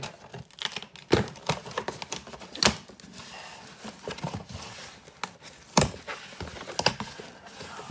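Cardboard shipping box being handled and opened by hand: irregular sharp clicks and knocks, a few of them louder, at uneven intervals.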